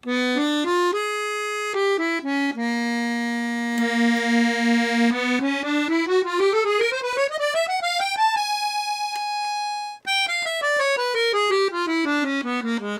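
Parrot Condor B-system chromatic button accordion's treble side: a few short notes, a long low held note that pulses, then a chromatic scale climbing about two octaves note by note, a held high note with a few faint clicks, and the scale running back down.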